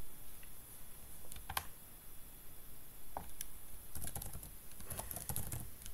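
Typing on a computer keyboard: irregular key clicks, a few at a time with pauses between them.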